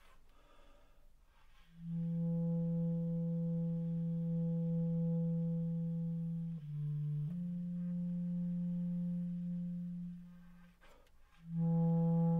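Solo bass clarinet sustaining long, steady low notes. A note held for about five seconds is followed by a brief step down and another long held note. After a short break, a louder new note begins near the end.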